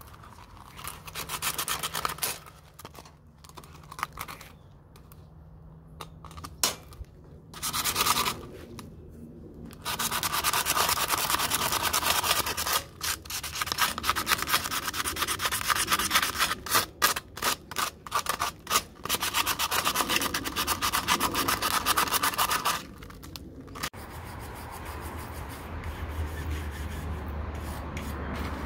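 Sanding sponge rubbed by hand over a rusty, peeling metal plant stand: quick back-and-forth rasping strokes in spells, with short pauses, busiest and loudest through the middle.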